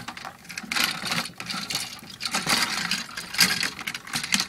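Hard plastic parts of an Ultimate Optimus Prime transformable toy being handled and pushed together: an irregular run of clicks, rattles and scrapes as the figure is worked into its armour.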